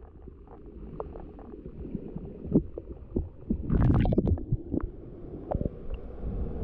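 Muffled low rumble of rushing water, dull and without any high end, with scattered knocks and clicks and a louder burst of them about four seconds in.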